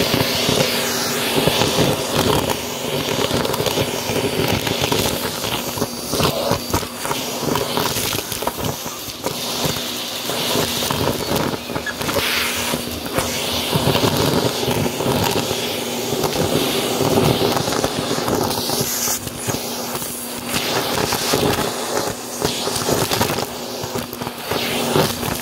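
Vacuum cleaner running with its hose nozzle sucking up a pile of shredded fluff, paper scraps, beads, buttons and small plastic bits from carpet. A steady motor hum runs under a constant stream of clicks and rattles as the debris is pulled up the hose.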